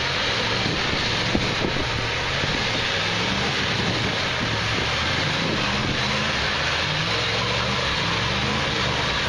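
Dodge pickup's Cummins turbo diesel engine running at low revs, its pitch rising in short repeated revs as the truck drives through a mud hole.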